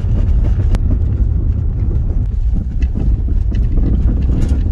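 Car driving slowly on a gravel road, heard from inside the cabin: a steady low rumble of the tyres with scattered clicks of loose stones.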